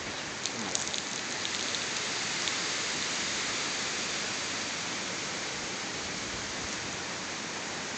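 Storm wind rushing through tree foliage: a steady, even hiss that sounds like heavy rain but comes from the trees. A few faint ticks stand out in the first two seconds.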